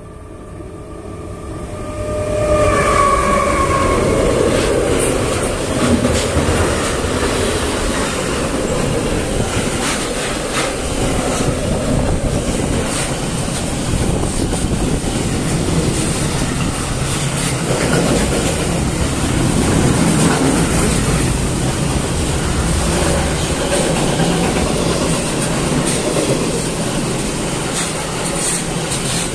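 Freight train of enclosed double-deck car-transport wagons passing close by: the rolling rumble builds over the first couple of seconds, then the steady clatter of wagon wheels goes on. A brief whine, falling slightly in pitch, shows about three seconds in.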